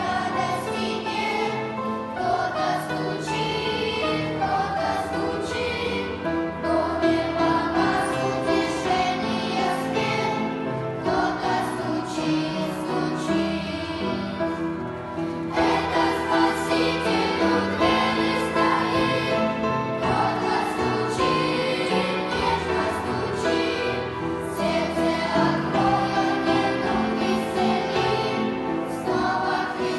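Sunday-school choir singing a Christian song in unison, holding long notes with short breaks between phrases.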